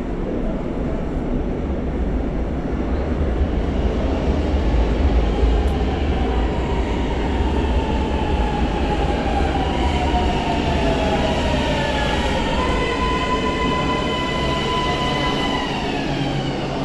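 Metro train arriving at an underground station. A heavy low rumble comes first, then from about halfway in a whine falls in pitch as the train slows to a stop at the platform.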